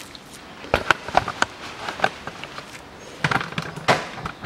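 A series of short, sharp clicks and knocks, about eight spread over three seconds: handling noise.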